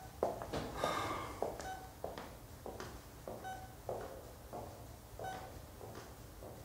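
Hard-soled shoes walking away across a hospital room floor, the steps growing fainter, while a bedside patient monitor beeps.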